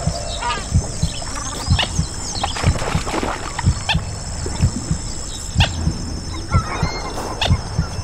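A heartbeat thumping steadily about twice a second under scattered short, high animal calls, over a steady high hiss. The sounds are layered together as a soundscape.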